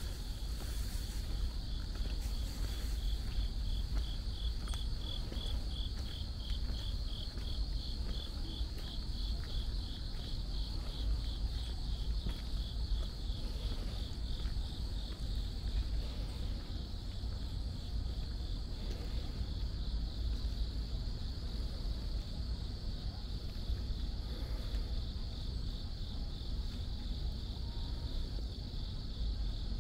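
Insects, crickets or the like, chirping in a steady high-pitched chorus, one call pulsing rapidly and evenly through the first half. A steady low rumble runs underneath.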